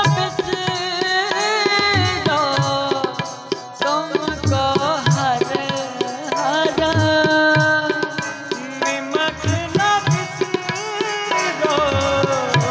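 Sikh kirtan: a male voice sings a shabad melody over held harmonium tones, with tabla strokes keeping a steady beat.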